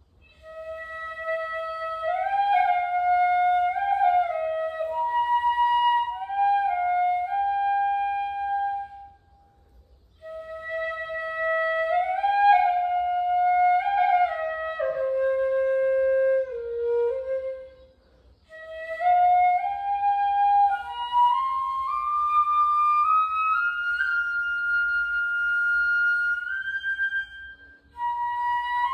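Shinobue, the Japanese bamboo transverse flute, playing a solo melody in three phrases with short breath pauses between them; the last phrase climbs step by step to higher notes.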